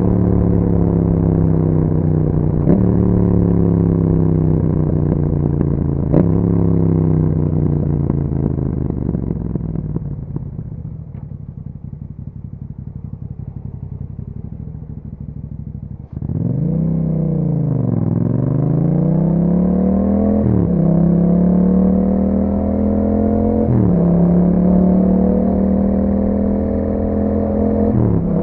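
Yamaha MT-07's 689 cc parallel-twin engine through an Akrapovič exhaust, heard while riding. The engine note slides down with two gear changes, drops to a quieter run for several seconds, then about sixteen seconds in comes back on loud and climbs through a few more gear changes under acceleration.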